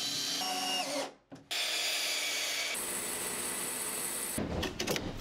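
A Makita cordless drill runs for about a second, then a bandsaw cuts through a length of wood steadily for about three seconds. Near the end, hand-saw strokes begin.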